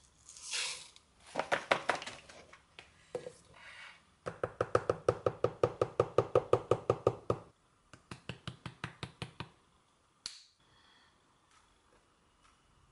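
Ingredients going into a plastic blender cup: a short pour of dry oats, then runs of fast, even taps, about eight a second, as powders are tapped and shaken out of their containers into the cup. A short sharp rip about ten seconds in, as a banana is peeled.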